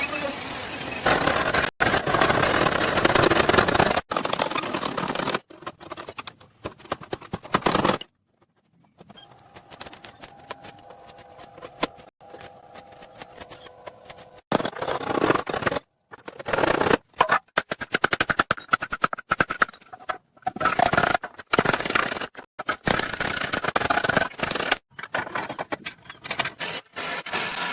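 Loud, noisy workshop sounds of scraping and machinery in short snatches that cut off abruptly and restart every second or two.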